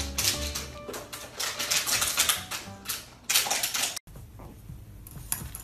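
Background music with rapid, irregular clicking over it, which stops abruptly about four seconds in, leaving a quieter stretch.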